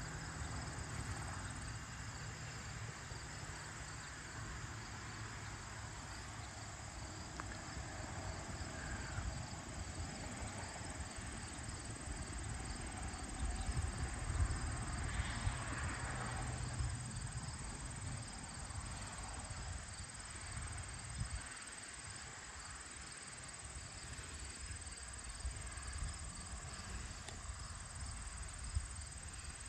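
Late-summer evening chorus of insects, a steady, evenly pulsing high chirring, over a low rumble that swells for a few seconds around the middle.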